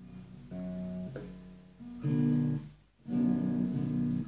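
Acoustic guitar strummed: a handful of separate chords, the two about two and three seconds in louder and left to ring.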